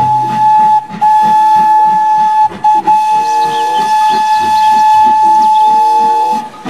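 Steam locomotive whistle, on an engine dressed as Thomas the Tank Engine, blowing one long steady blast. It breaks briefly about a second in and again about two and a half seconds in, then stops near the end, over the regular chuffing of the engine.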